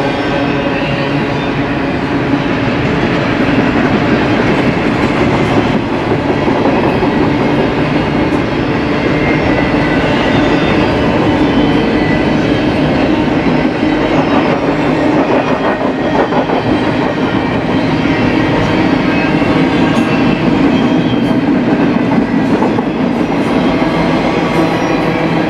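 Double-stack intermodal well cars of a BNSF freight train rolling past on the rails: a loud, steady rolling noise of steel wheels on track.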